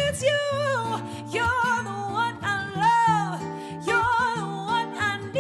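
Female vocalist singing wavering, sliding runs over an acoustic guitar accompaniment.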